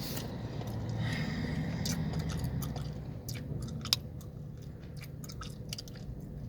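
Gum chewed with the mouth close to the microphone: wet smacks and irregular sharp clicks, one sharper click about four seconds in. A steady low rumble of the car runs underneath.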